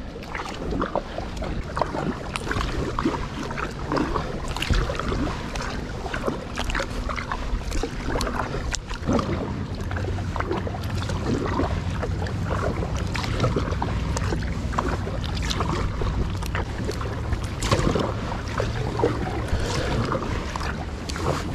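Kayak paddling: the paddle blades dip and splash over and over, with water dripping and swishing. A steady low rumble of wind plays on the camera microphone.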